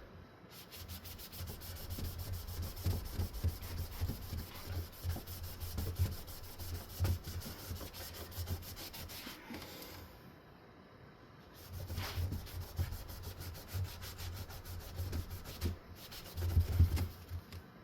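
A cleaning wipe being scrubbed hard back and forth over a ceiling fan blade, with a brief pause a little past halfway.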